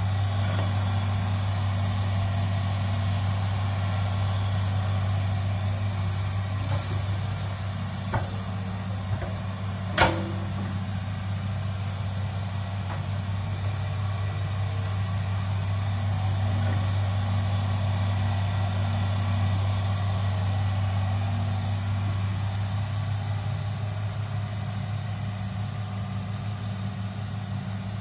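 Diesel engine of a hydraulic excavator running at a steady, low hum while it digs a trench. A single sharp knock sounds partway through.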